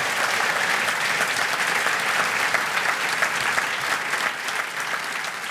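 Audience applauding: many hands clapping in a steady, dense patter that eases off slightly near the end.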